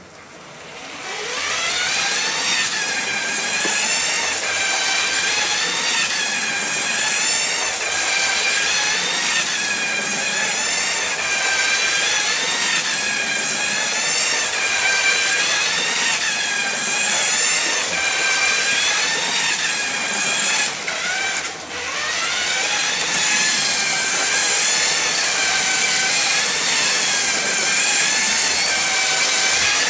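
LEGO 9 Volt train motor in a Santa Fe Super Chief locomotive, whining as the train pulls away, then running steadily around the track, its pitch rising and falling as it takes the curves. The whine briefly drops away about 21 seconds in, then rises again.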